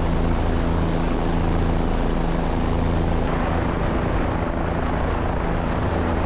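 Helicopter in flight, a steady rotor and engine noise with a low hum under a dense wash.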